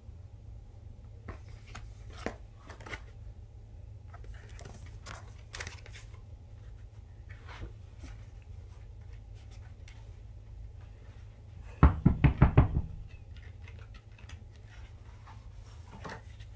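Paper and card contents of a CD album being handled: soft rustling and light clicks over a steady low hum, with a rapid run of loud knocks, about six in a second, roughly twelve seconds in.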